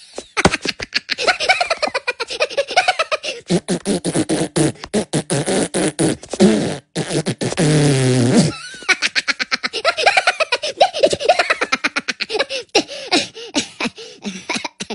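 A long, rapid string of sputtering fart noises whose pitch wavers up and down, broken briefly about seven seconds in by a drawn-out one, then going on in shorter bursts that thin out near the end.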